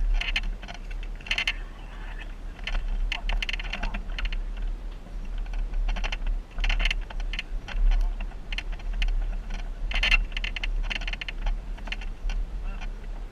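Jeep on a rough off-road trail: rapid, irregular clicking and rattling over a low steady rumble.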